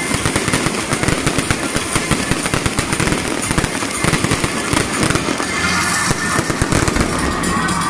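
Aerial fireworks bursting overhead in a fast, continuous crackle of many pops and bangs.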